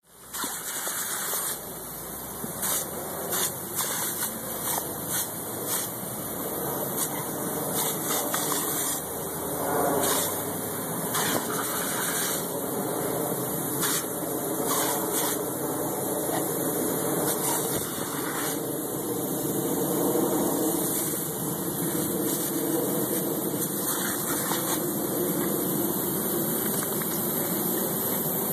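Pop-up lawn sprinkler head spraying a steady jet of water that hisses throughout, broken by irregular splashes as a dog bites and snaps at the stream.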